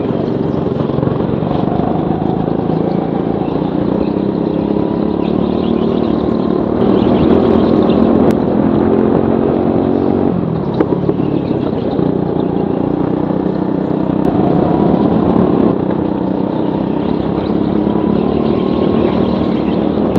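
Indoor rental go-kart's engine heard from the driver's seat, running under hard throttle with its pitch climbing and falling as the driver accelerates and lifts, with a sharp drop about ten seconds in.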